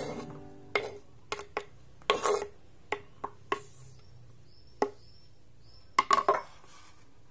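Kitchen knife knocking and scraping on a bamboo cutting board while sweeping chopped spring onions and shallots into a bowl: a dozen or so separate sharp knocks, with a quick cluster about six seconds in.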